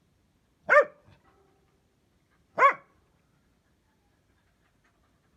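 Dachshund barking: two single sharp barks, about two seconds apart.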